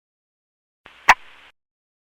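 A short burst of radio static, about two-thirds of a second long, with one sharp click near its middle: a comlink squelch burst from a Stormtrooper radio-chatter sound effect.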